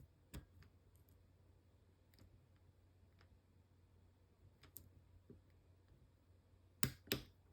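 Faint, sparse clicks of a lock pick working the pin stack of an American Lock series 1100 lock, with two louder clicks close together near the end.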